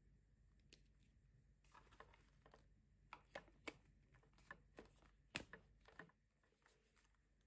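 Light plastic clicks and taps as the water tank of a Philips handheld garment steamer is handled and fitted to its body: a quick, uneven run of them, with one louder click a little past the middle.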